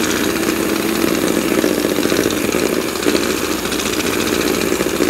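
Electric hand mixer running steadily, its beaters churning through cooked chicken breast to shred it.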